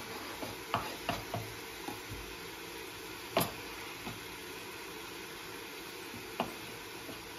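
Kitchen knife cutting bell pepper and tomato on a wooden cutting board: a handful of sharp taps of the blade on the board at uneven intervals, the loudest about three and a half seconds in. Under them runs a steady sizzle from a pan of vegetables frying on the stove.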